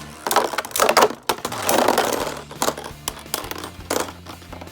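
Spinning Beyblade tops clashing in a plastic stadium: a run of sharp clacks and rattling knocks as they collide, with Siege Xcalibur hitting the wall, flipping and bursting apart.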